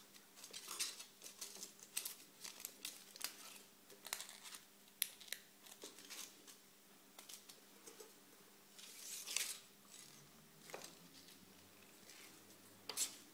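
Film leader and a projector's take-up reel handled by hand: faint scattered clicks and rustles as the film end is tucked into the reel hub and wound on, with one longer rustle a little after halfway.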